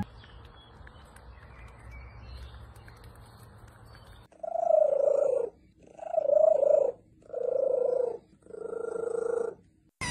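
A cat being scratched on the head purring loudly, starting about four seconds in, in four drawn-out stretches of about a second each with short breaks between.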